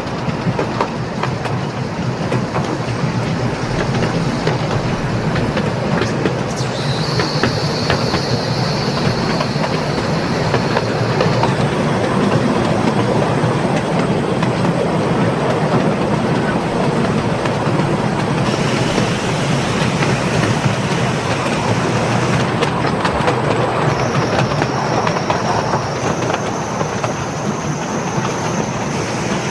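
Miniature railway train running along 7¼ in gauge track, heard from on board: a steady rumble and clatter of wheels on rail. A thin high wheel squeal comes in about seven seconds in for a few seconds, and again near the end, as the train runs through curves.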